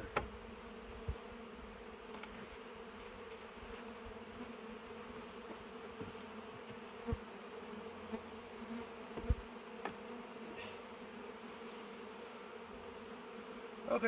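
Honey bees buzzing in a steady drone around an opened hive, many of them in the air while its boxes are taken apart. A few short knocks sound as the wooden hive boxes are lifted and set down.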